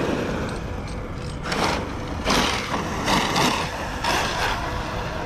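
Arrma Kraton EXB electric RC monster truck driving hard, its motor and drivetrain running in repeated surges of throttle with tyre noise. The drivetrain has developed a clicking noise that the owner puts down to grinding internals or the new rear differentials.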